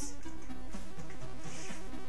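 Background music: a tune of short notes stepping up and down, with no speech.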